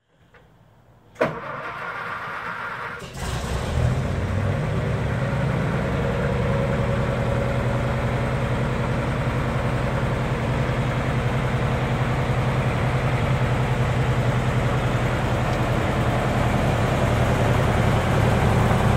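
Engine of a 60-year-old Air Force O-11A crash fire truck being started after a long lay-up: a sharp click about a second in, about two seconds of cranking, then the engine catches and settles into a steady idle.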